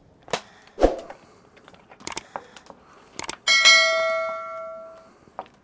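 Pieces of fish being laid into an empty metal cauldron (kazan), with scattered knocks and clatter. About three and a half seconds in, the metal is struck and rings out with a clear bell-like tone that fades over about a second and a half.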